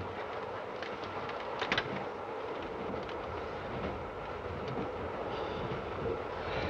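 Railway carriage running steadily: an even rumbling noise of the train in motion with a few light clicks, two of them close together about a second and a half in.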